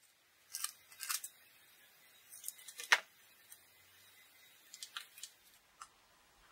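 Scissors cutting black adhesive tape, with the tape crackling as it is pulled off the roll and handled: a scatter of short, sharp snips and rustles, the loudest about three seconds in.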